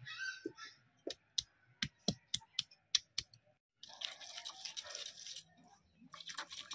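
A stone roller (nora) working tomatoes, onions and garlic into a wet paste on a stone grinding slab (shil). It starts with a run of sharp stone-on-stone clicks and taps, then after a brief pause gives way to rough scraping and wet crushing.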